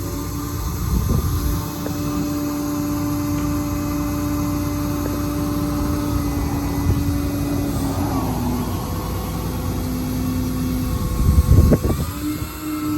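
6.7 Cummins diesel of a Ram 5500 service truck running at raised idle, driving its PTO hydraulics. There is a steady whine that drops in pitch about eight seconds in, cuts out briefly and comes back near the end, with two louder rough surges along the way.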